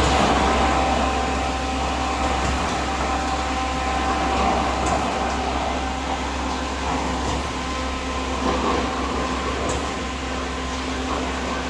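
ABJZ40C diesel concrete mixer pump running steadily, its engine giving a constant low hum with steady whining tones above it while it mixes and pumps concrete.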